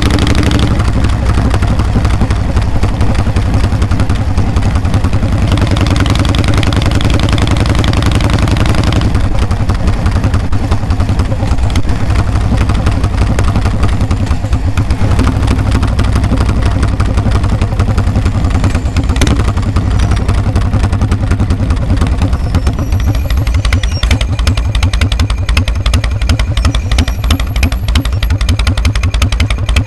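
Harley-Davidson V-twin exhaust heard from the rider's seat while under way: a loud, steady stream of exhaust beats. In the last several seconds the beats come slower and stand out more as the bike slows behind traffic.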